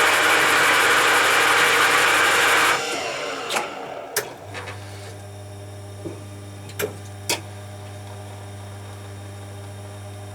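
Bean-to-cup coffee machine grinding beans with a loud, even whirr for about three seconds. A few clicks and clunks from the brewing unit follow, then a steady pump hum as the cappuccino starts brewing.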